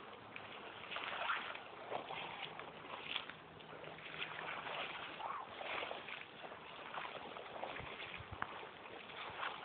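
Footsteps swishing through tall grass and weeds in an irregular rustle, with a few low thumps near the end.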